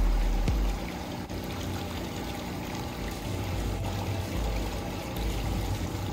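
Pool water sloshing and swirling around a person wading slowly through a swimming pool.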